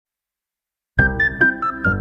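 Silence, then about a second in music begins: a quick melody of short, bright notes over lower bass notes.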